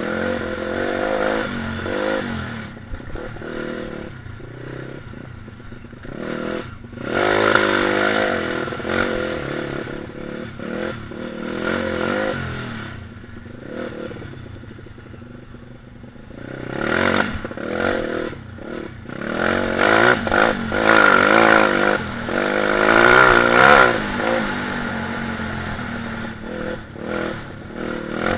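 Stomp KZR 140cc four-stroke pit bike engine being ridden off-road, heard from an onboard camera. The engine note climbs and falls with the throttle, easing off in the middle and revving hardest in the second half, over a clatter from the rough ground.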